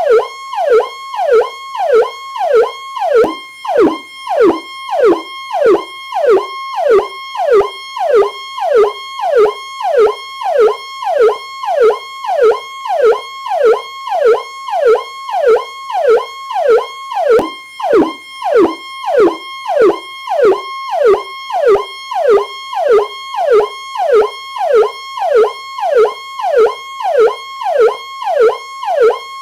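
Electronic police siren sounding its powercall tone: a briefly held high note that drops in a fast falling sweep, repeating about one and a half times a second without a break.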